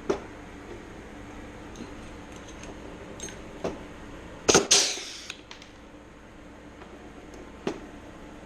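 Blind aluminium rivets being pulled into sheet-metal skin: single sharp snaps a few seconds apart as each mandrel breaks, with the loudest two close together about halfway through.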